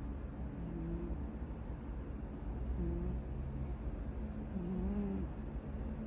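A man snoring: a continuous low rattling drone, with short higher-pitched notes breaking in every couple of seconds.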